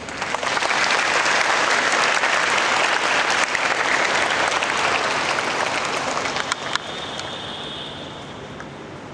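Audience applauding: a dense clapping breaks out at once, holds for about six seconds, then dies down.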